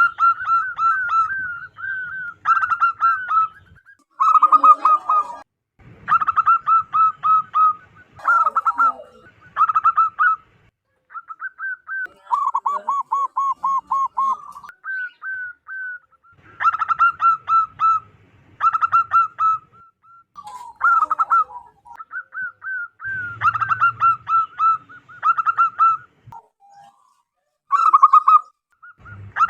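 Zebra doves (perkutut) cooing: quick series of short, clipped notes in phrases of one to two seconds, repeated with brief pauses, with a lower-pitched, more even run of notes near the middle.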